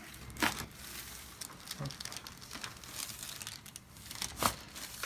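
Chiropractic neck adjustment: two sharp cracks from the patient's neck, one about half a second in and a louder one near the end, with light crinkling between them as she moves on the table.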